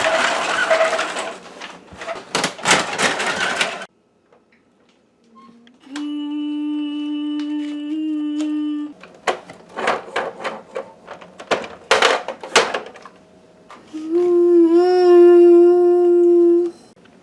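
Clattering knocks of handled plastic parts, then two stretches of a steady hum from a small motor, a few seconds each, with more knocks between them.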